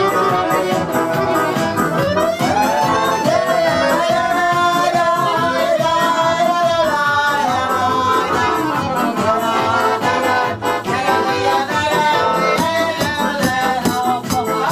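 Live folk music on accordion and strummed guitar with a steady beat, and a voice singing over it.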